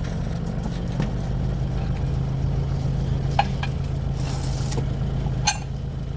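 Vehicle engine idling with a steady low hum, with a few sharp clinks about halfway through and again near the end.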